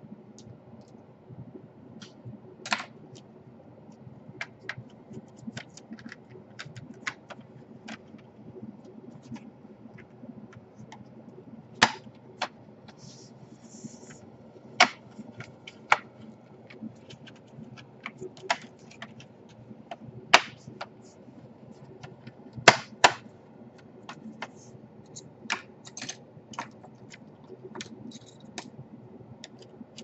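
Irregular sharp plastic clicks and snaps from the Asus G53S's palmrest cover as it is pressed down and its clips seat into the laptop base, with a few louder snaps around the middle.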